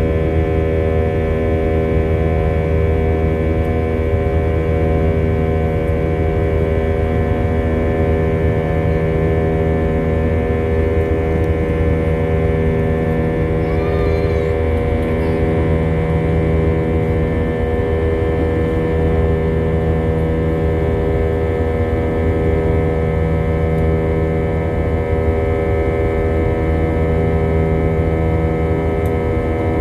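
Jet airliner cabin noise in the climb after takeoff: the engines' steady drone, a low rumble with several steady hum tones over it.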